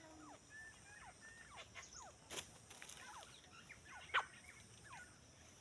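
Grey francolin (desi teetar) calling: many faint, short chirping notes, with two louder sharp calls about two and a half and four seconds in.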